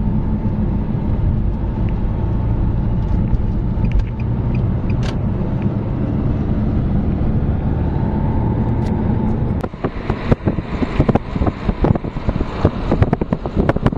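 Steady road and engine rumble heard inside a moving car's cabin. About ten seconds in it gives way abruptly to gusty wind buffeting the microphone, as at an open car window at speed.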